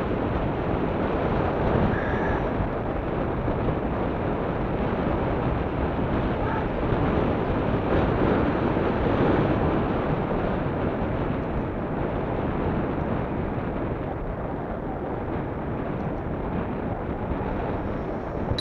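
Wind buffeting the microphone of a camera mounted on a moving recumbent bicycle: a steady rushing rumble, a little louder near the middle and easing off toward the end.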